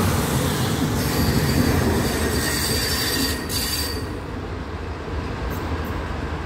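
Renfe Class 592 diesel multiple unit pulling away from the platform. Its wheels rumble on the rails and give a thin high squeal for a few seconds, and the noise fades slowly as the train draws away.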